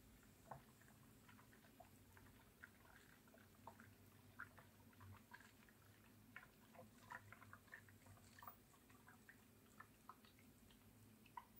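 Faint, irregular ticks and drips: water from the ammonia fountain jet spattering against the inside of a glass round-bottom flask.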